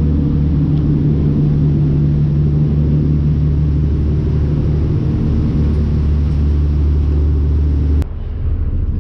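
Passenger riverboat's diesel engine running at steady speed, a loud low drone. About eight seconds in it changes abruptly to a quieter drone.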